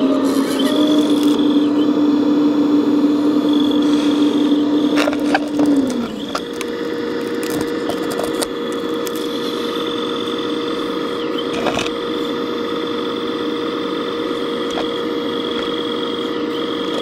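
Radio-controlled scale CAT 374D hydraulic excavator running as it digs, its motor and hydraulic pump giving a steady mechanical hum. About six seconds in the hum drops in pitch and a higher steady whine takes over, with a few clicks along the way.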